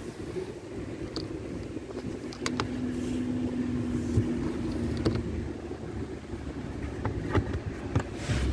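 A few sharp clicks and knocks of hands on the plastic trim and boot-floor handle of a car's boot, over a steady low rumble, with a steady hum for a few seconds in the middle.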